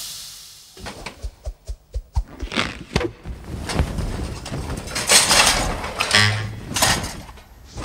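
Cartoon sound effects: a quick series of taps and knocks broken by several short whooshes.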